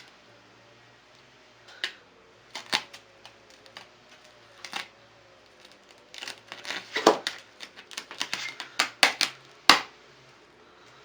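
Scattered sharp clicks and crackles from vinyl overlay film being handled and worked onto a car headlight, coming thick and fast in the second half.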